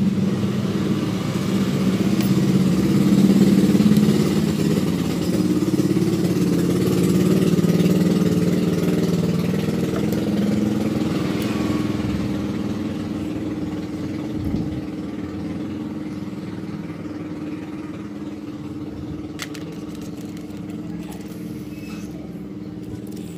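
A motor vehicle engine running steadily, loudest for the first several seconds and then slowly fading away. A few short clicks come near the end.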